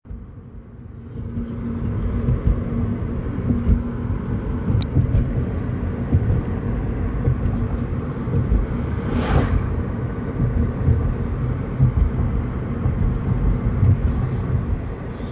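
Road and engine rumble heard inside a moving car's cabin, a steady low drone, with a brief rushing whoosh about nine seconds in.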